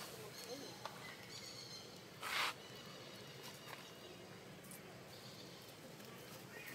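Macaque eating watermelon, with a few faint clicks and one short, louder noise about two seconds in, over quiet outdoor background noise.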